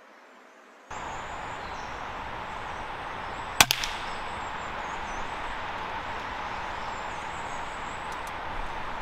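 A single sharp crack with a short ring and low thump about three and a half seconds in, the discharge of a Weihrauch HW100 .22 PCP air rifle, over a steady background hiss that starts abruptly about a second in.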